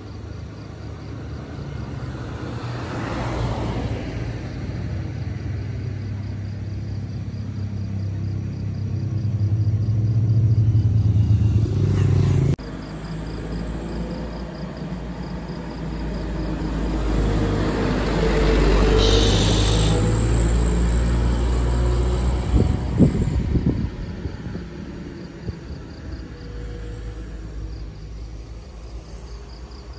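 Heavy diesel trucks loaded with sugarcane passing, a low engine rumble that builds as each truck approaches and cuts off abruptly about twelve seconds in. The rumble rises again to a peak around twenty seconds in, with a brief hiss there and a few knocks and rattles a few seconds later.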